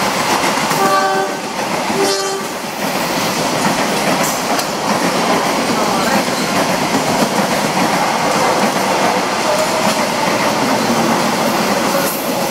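Locomotive-hauled passenger train's coaches rushing past at speed: a loud, steady rolling roar with wheel clatter on the rails. Two short horn toots sound about one and two seconds in.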